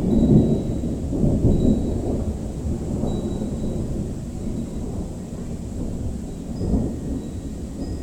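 Thunder rumbling, loudest in the first two seconds and slowly dying away, with a smaller swell near the end.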